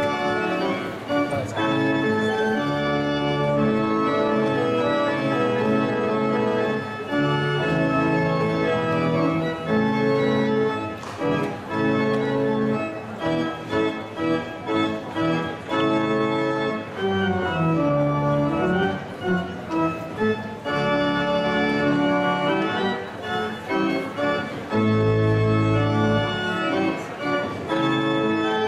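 Church organ playing a postlude of sustained chords, with deep bass notes coming in now and then and strongly near the end, as the service closes.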